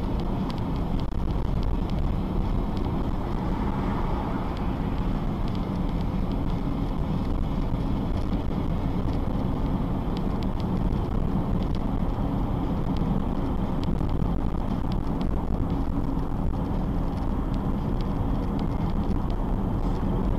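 Steady engine and road noise of a car driving slowly, heard from inside the cabin through a dashcam microphone, with no impact or crash.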